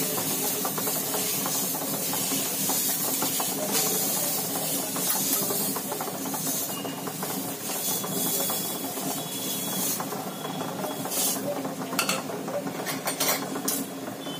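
Besan chilla batter sizzling on a hot tawa over a gas burner, with a steel ladle scraping and pressing as the batter is spread. A few sharp clicks come about three quarters of the way through.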